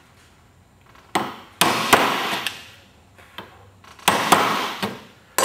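Hammer striking a wood chisel held upright, cutting down the end of a hinge recess in a timber door jamb. A few sharp blows about a second in, and another few around four seconds in.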